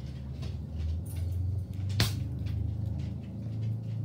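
Plastic drink bottle's screw cap being twisted by hand: small clicks and rustles, with one sharp click about two seconds in, over a steady low hum.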